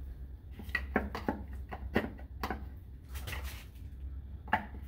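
Scattered light clicks and knocks as a plastic oil funnel and the pulled dipstick are handled in the engine bay, over a steady low hum.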